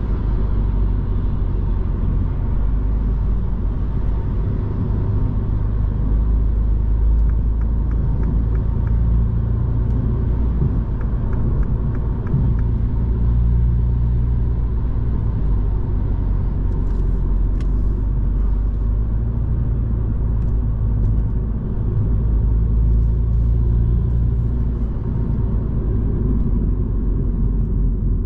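Cabin noise of a 2022 Mini Cooper S (F56) on the move: a steady low rumble of tyres on the road and its 2.0-litre turbocharged four-cylinder engine, with a faint steady whine.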